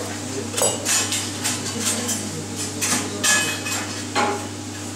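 Kitchen clatter: irregular sharp clinks and knocks of utensils and dishes, about seven in five seconds, a few ringing briefly, over a steady low hum.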